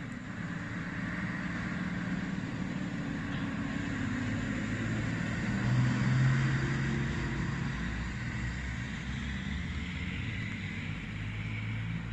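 Fire engine's engine running as it drives past and away, loudest about halfway through, then easing off.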